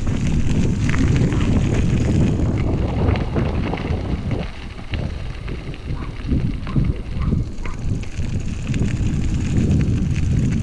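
Wind buffeting the microphone on a moving electric bike: a loud low rumble that eases off somewhat in the middle, with scattered small knocks and rattles from the ride.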